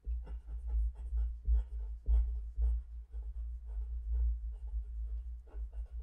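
Handwriting close to the microphone: a pen or pencil scratching out quick, irregular strokes, several a second, over a steady low rumble, as math problems are written out.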